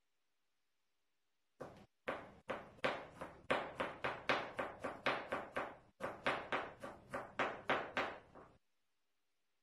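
Kitchen knife chopping carrots on a cutting board: a quick, even run of knocks, about three a second, starting about a second and a half in, with a short break near the middle, and stopping near the end.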